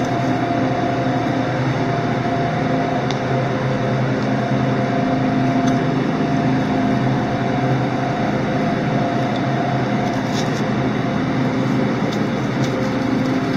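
Steady machine hum with several steady tones, and a few faint ticks about three seconds in and again near the end.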